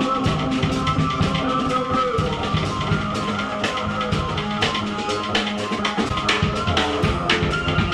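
Casio keyboard and drum kit played live as noise music: rapid, hard drum hits over several sustained keyboard tones.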